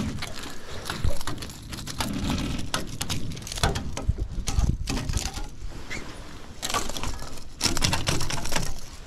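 A freshly landed barracuda thrashing on wooden pontoon boards, making irregular knocks and slaps, mixed with footsteps on the boards and clothing and handling rustle as the angler reaches for it.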